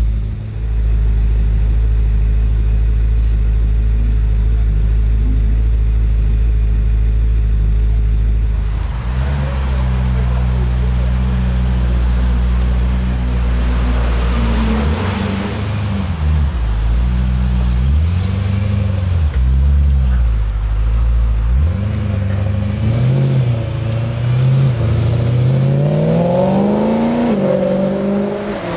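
Supercharged 4.0-litre V8 of a Manhart MH3 BMW M3 with Akrapovic exhaust, idling steadily at first. From about a third of the way in it is revved repeatedly, the pitch rising and falling, and near the end it accelerates away with the note climbing.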